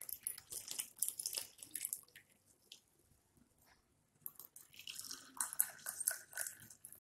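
Hot lemon tea poured through a plastic mesh strainer into a glass tumbler, a trickling splash. The pour stops about two seconds in, and a second pour into another glass starts about four seconds in.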